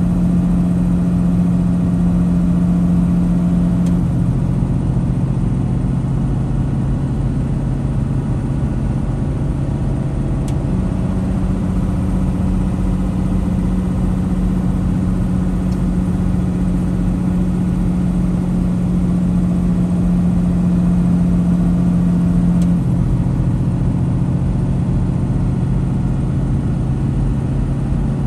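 Semi-truck diesel engine running under engine braking on a 6% downgrade, heard from inside the cab over road noise. Its steady low tone steps down in pitch about four seconds in, back up near eleven seconds, and down again near twenty-three seconds.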